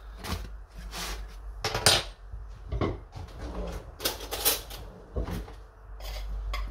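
Metal cutlery and cookware clinking and knocking in a string of separate strikes, about one a second.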